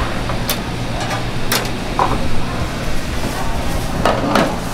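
Kitchen clatter: a handful of sharp knocks and clicks over a steady low hum.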